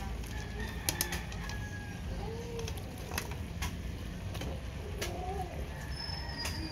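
Fried tofu pieces tipped from a plate into a frying pan, with several sharp clicks of plate and tofu against the pan. A bird gives two low calls in the background.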